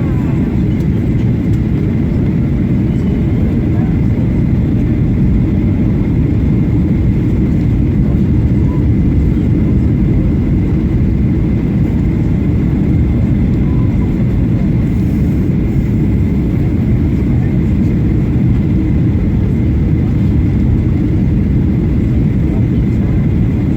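Boeing 737-800 cabin noise on final approach before touchdown: a steady low rumble of engines and airflow, with a faint steady high tone above it.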